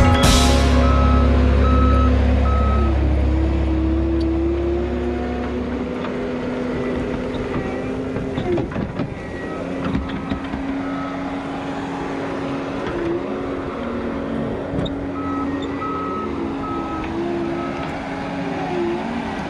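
John Deere 331G compact track loader's diesel engine running under load, its pitch rising and falling as it pushes and spreads dirt. Its backup alarm beeps in a quick on-off pattern at the start and again in the later part while the machine reverses.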